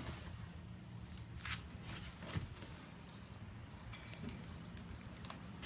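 Quiet handling noise: a few scattered rustles and light knocks over a low steady hum.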